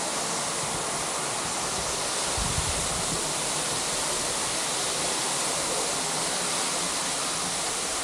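Waterfall rushing, a steady, even roar of falling water, with a brief low thump about two and a half seconds in.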